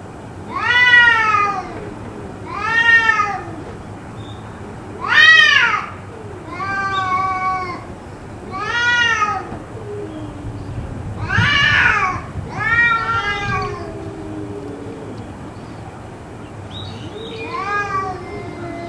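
Cat yowling: about eight long, drawn-out meows in a row, each rising and then falling in pitch, with a lower, longer moan underneath in the middle. The uploader wonders whether it is a cat fight.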